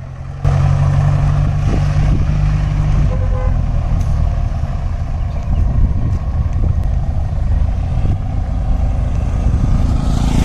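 Off-road 4x4 jeep's engine running steadily under way, a loud low drone that comes in sharply about half a second in.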